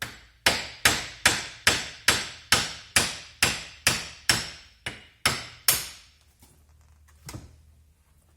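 Small hammer tapping steadily, about two and a half blows a second for some six seconds, knocking the bearing out of the Peugeot 405 power-steering valve body held in a vise. One lighter tap follows near the end.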